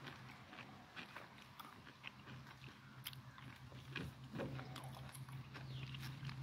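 Faint scattered clicks and small scrapes of hands and a tool working at the finned fan end of an electric auto-rickshaw's motor, over a steady low hum that strengthens slightly about four seconds in.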